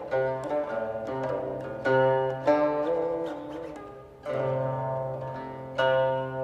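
Slow, calm instrumental music in the style of Chinese five-tone (wuyin) healing music: a zither plucked one note at a time, each note ringing and fading, some bent in pitch, over a held low note.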